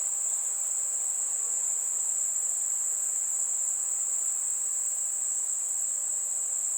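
Dense chorus of crickets chirring steadily and without pause, a continuous high-pitched trill over faint night-time ambience.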